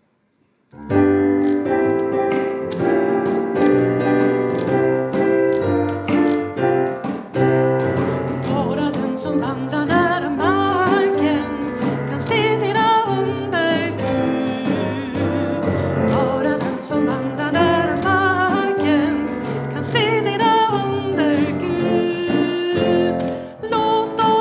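A Roland digital piano and a hand drum (djembe) strike up about a second in. After a short instrumental intro, a woman's solo singing voice joins them and carries the melody over the piano chords and drum beat.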